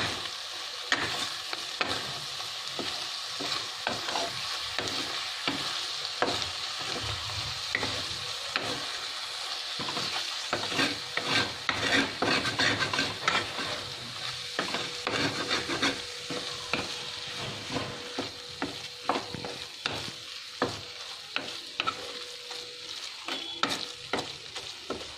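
Wooden spatula stirring and scraping scrambled egg and tomato in a frying pan: irregular scrapes and knocks over a steady sizzle from the hot pan.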